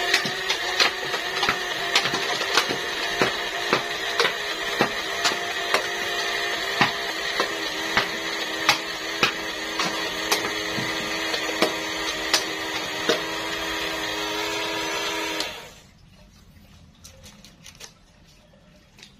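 Small electric motor in a homemade cardboard Stoner 63 replica gun running in automatic fire: a steady whine with a sharp click about twice a second as it shoots. The motor cuts off suddenly about 15 seconds in, leaving a few faint clicks.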